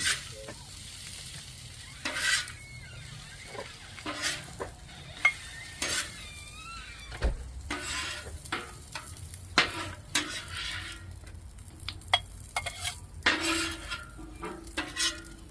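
Potatoes sizzling in hot oil in a frying pan while a utensil stirs and turns them, scraping and knocking against the pan many times.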